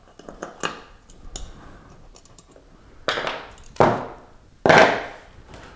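A few light clicks of a screwdriver working in a hard drive, then the drive's metal casing knocked against the wooden bench top three times as it is turned over and handled, the last knock the loudest with a short scrape after it.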